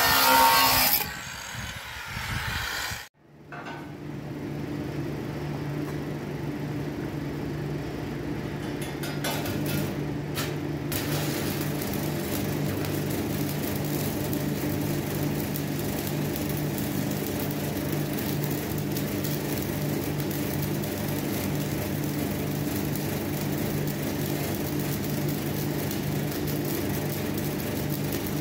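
An angle grinder cuts steel channel for about the first second. After a brief break, stick (arc) welding with E6013 electrodes gives a steady crackle over a low hum.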